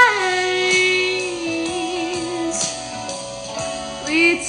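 A song with guitar accompaniment: a held sung note wavers and fades over the first second and a half, then the guitar carries on alone, and the voice comes back near the end.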